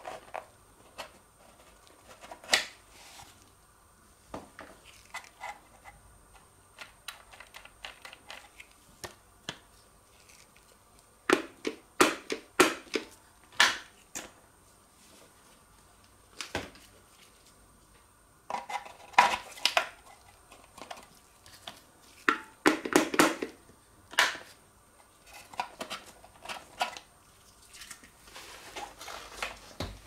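Handling sounds from a cordless stick vacuum's dust compartment: clicks and knocks of plastic parts and the rustle of the fabric dust bag as it is unhooked and pulled out. Three bunches of quick clatter are loudest, with a softer rustle near the end.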